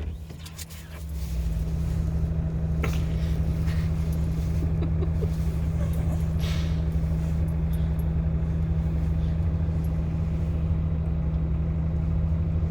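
A motor or engine comes up about a second in and runs with a steady low hum.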